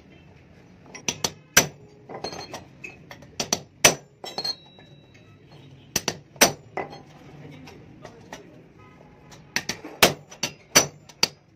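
Hammer blows on a steel punch set against the rivets of a clutch disc, metal on metal with a short bright ring. The strikes come in quick groups of two to four, with pauses between the groups.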